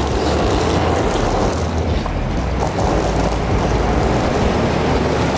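Wind buffeting the camera microphone in a steady low rumble, over street traffic noise.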